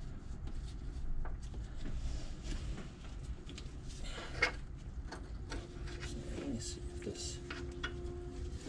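Scattered clicks, knocks and rubbing of metal parts and tools as a stud is worked into place during the Rolls-Royce Phantom I clutch install, with one sharp click about four and a half seconds in, over a low steady rumble.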